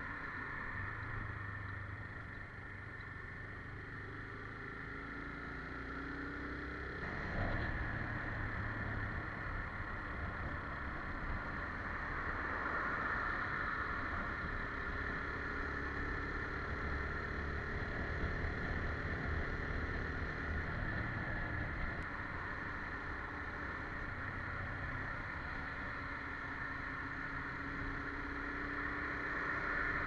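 Motorcycle engine running on the move, under steady wind rush on the helmet camera's microphone. The sound gets louder about seven seconds in.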